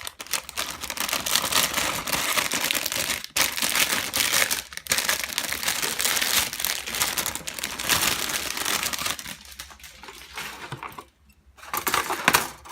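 Plastic bags crinkling as bagged plastic model-kit parts are handled and unpacked, nearly continuous, thinning out after about nine seconds, then one short burst near the end.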